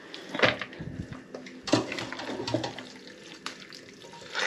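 Marinade liquid squeezed by hand from vinegar-marinated pike, onion and carrot, running and splashing into a stainless steel pot with wet squelches, several squeezes in a row.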